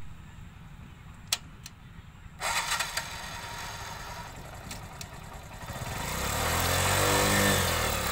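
TVS motorcycle's single-cylinder engine running at low revs, with two sharp clicks in the first two seconds; about six seconds in the engine revs up and eases back as the rider pulls away.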